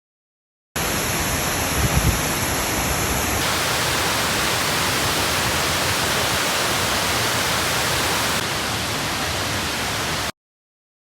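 Steady rushing of the Kuang Si waterfall, heard in three clips joined by abrupt cuts. It starts after a brief silence and cuts off near the end.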